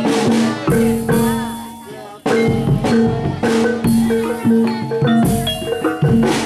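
Lively music with pitched mallet percussion and drums playing a repeating pattern; it fades about a second in and starts again sharply about two seconds in.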